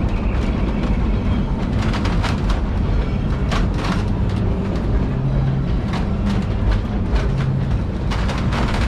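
Narrow-gauge passenger train rolling along its track, heard from inside an open-sided wooden coach: a steady low rumble with frequent irregular clatter and rattling of wheels and car.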